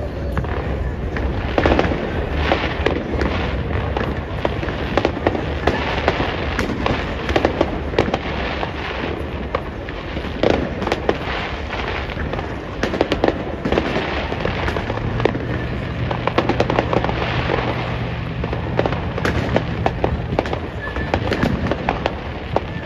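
Many fireworks and firecrackers going off at once: a dense, unbroken run of bangs and crackles. A steady low tone joins in for about five seconds past the middle.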